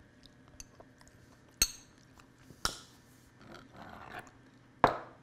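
A metal spoon clinking against a glass jar of hot pepper spread: three sharp clinks, the last and loudest near the end.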